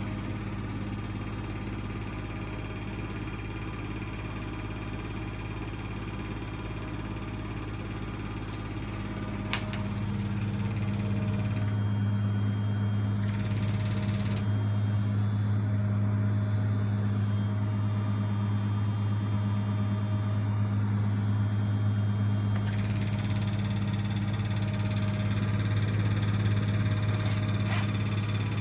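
Bosch WVH28360GB washing machine in its spin cycle: a steady low mechanical hum that grows louder about ten seconds in, with a couple of brief clicks. This is the funny noise the owner hears when it spins.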